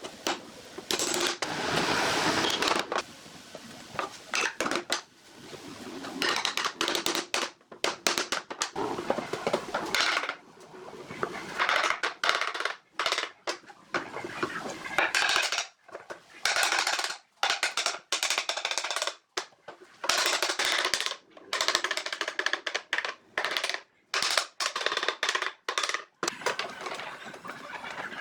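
Woodworking tool noise: a run of short, noisy working bursts, each a second or two long, broken off by abrupt cuts.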